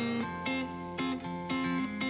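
Background music of plucked guitar notes at a steady pace, about two notes a second.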